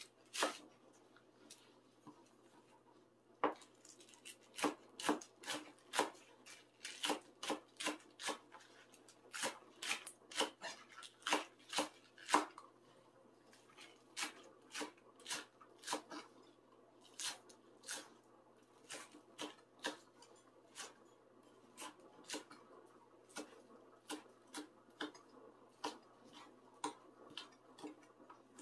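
Kitchen knife chopping vegetables on a cutting board: a run of sharp, irregular knocks, about one or two a second, with a pause of a few seconds near the start.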